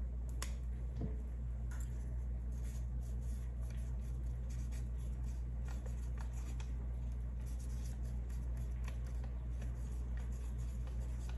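Pen writing on a paper label on a glass mason jar: faint, scattered scratches and small ticks over a steady low hum.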